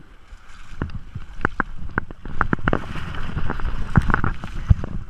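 Close splashing and sloshing of creek water as a brown trout is brought in and netted, with sharp knocks and handling rumble on the body-worn camera; the splashing grows louder about two seconds in.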